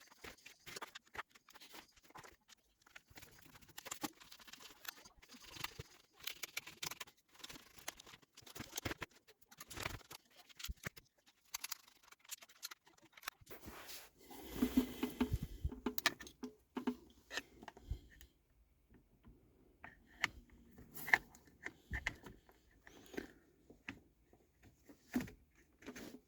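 Scattered light clicks, taps and scrapes of small parts being handled and worked by hand, with a denser, louder stretch of rustling and knocking about halfway through.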